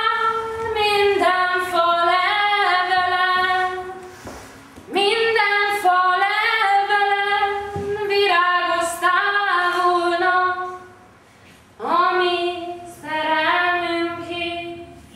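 A woman's voice singing unaccompanied in long held phrases, breaking off briefly about four seconds in and again about eleven seconds in.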